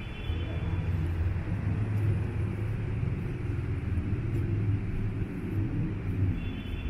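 City street traffic: a steady low rumble of vehicle engines, with a faint high tone near the end.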